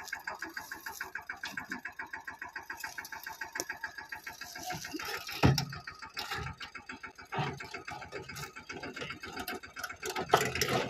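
Mini tractor's diesel engine running with a steady, rapid beat. A single loud knock sounds a little past halfway, and another near the end.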